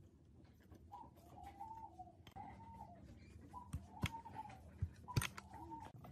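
A few sharp metal clicks from a socket wrench and extension working the head bolts of a parallel-twin motorcycle engine, with a bird calling four times in the background.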